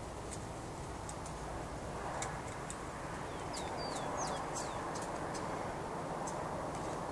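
Rufous-collared sparrows (tico-tico) giving repeated sharp chip calls in a territorial squabble, with a quick run of short down-slurred whistled notes about three and a half seconds in.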